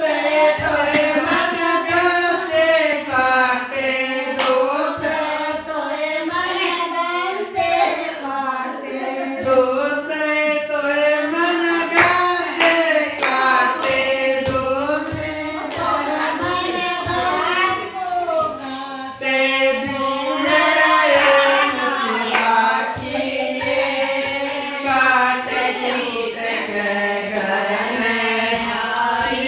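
A Haryanvi folk song: a singing voice carrying a melody that bends up and down, over a steady percussion beat.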